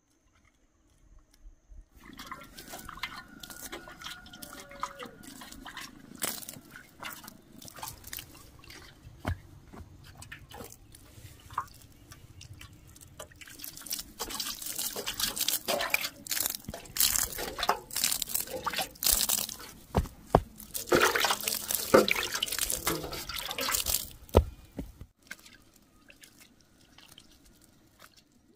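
Water poured in a thin stream onto seedlings in wet soil, splashing and dripping irregularly. It begins about two seconds in, grows heavier in the second half and stops a few seconds before the end.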